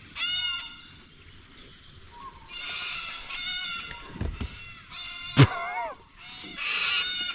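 Waterfowl honking in several short calls, with two sharp knocks in the middle, the second the loudest sound.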